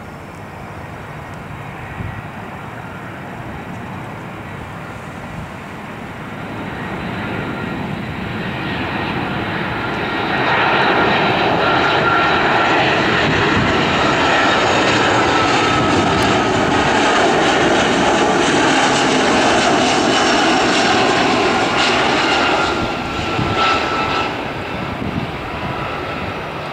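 Airbus A320 jet airliner on final approach flying low overhead. The engine noise grows, is loudest for about twelve seconds in the middle with a whine that slowly drops in pitch as the plane passes, then fades away.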